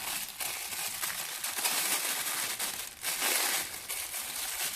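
Thin plastic bag crinkling and rustling as it is handled, with a louder burst of crinkling about three seconds in.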